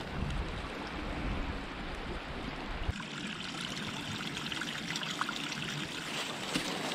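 Small woodland creek trickling steadily over mossy rocks and leaf litter.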